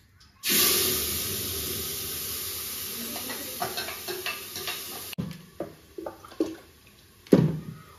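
Tomato and green chilli paste poured from a blender jar into a hot pressure cooker with cumin seeds, starting a loud sizzle all at once that slowly fades over about five seconds. Then a few knocks and clatters of kitchenware, with one sharp knock near the end.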